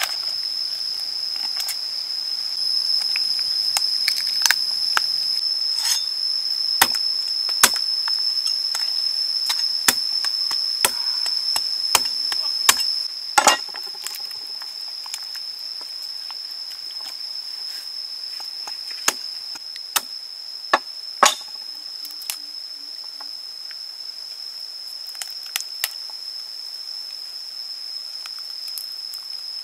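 Scattered sharp cracks and snaps, in two bunches, as a raw duck's rib cage and joints are cut and broken apart with a knife and by hand. Behind them runs a steady high insect drone.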